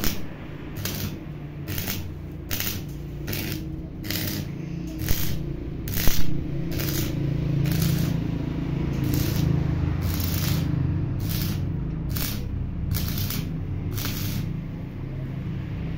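Stick (shielded metal arc) welding on steel: the arc crackles and sizzles steadily, with sharp pops about every half second.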